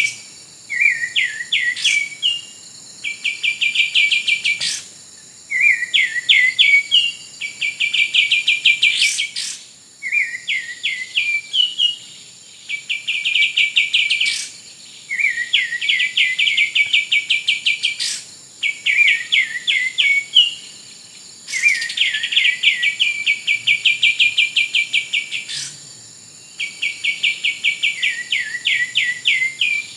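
Kapas tembak songbird singing in repeated phrases, each a fast chattering run of notes with a few falling notes, one about every three seconds. The phrases are near-identical, like a looped bird-lure call.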